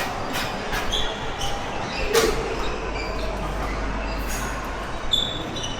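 Badminton rally: rackets striking the shuttlecock in sharp, irregularly spaced cracks, the loudest about two seconds in, with two short high squeaks, over a steady hall hum.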